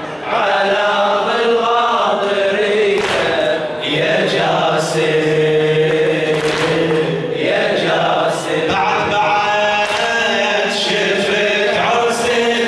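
A male radood chanting an Arabic Shia lament (latmiya) into a microphone, in long melodic phrases with some notes held for a second or more.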